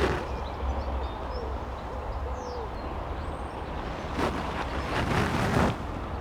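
A pigeon cooing, a run of short soft coos, with small birds chirping faintly over a low rumble. About four seconds in comes a loud burst of rustling noise lasting a second and a half.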